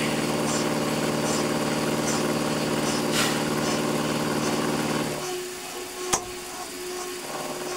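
Milling machine running with a small 45-degree chamfering cutter cutting a chamfer along the edge of a metal block as the table feeds past, a steady machine hum. About five seconds in the hum drops and thins out, and there is a single sharp click about a second later.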